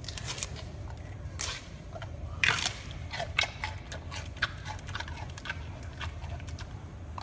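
Giant panda biting and chewing a piece of bamboo: an irregular run of crisp crunches and snaps, the loudest about two and a half seconds in.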